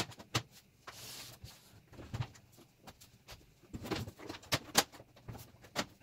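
Metal side panels of a desktop computer case being handled and slid back on: a quick run of clicks, knocks and a short scrape, sped up to triple speed.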